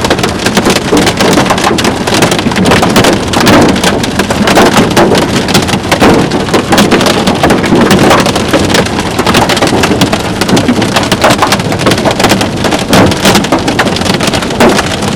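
Hail and heavy rain hammering on a vehicle: a loud, dense, continuous clatter of many sharp impacts.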